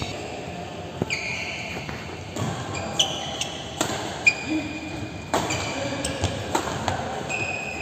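Badminton rally: several sharp racket-on-shuttlecock hits about a second apart, the loudest a little past the middle, with short high squeaks from shoes on the court between strokes.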